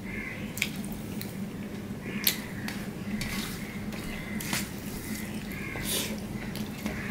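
Fingers mixing rice with cooked taro leaves on a steel plate: wet squishing and light, irregular clicks of fingers against the metal, over a low steady hum.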